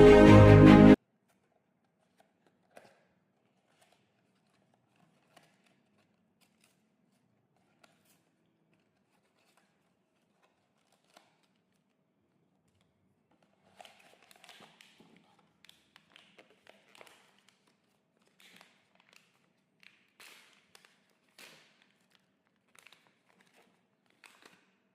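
Music cuts off suddenly about a second in. Then come faint occasional taps, and from about halfway on a run of short, faint crinkling and scratching as blind-box packaging is handled and opened.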